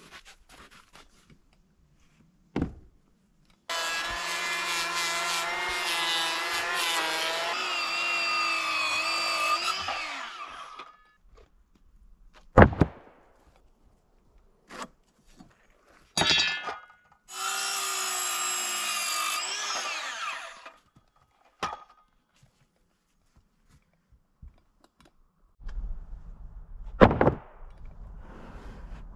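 A hand-held power tool runs under load for about six seconds, then again for about three seconds after a pause, its pitch dropping as it winds down each time. Sharp knocks come between the runs.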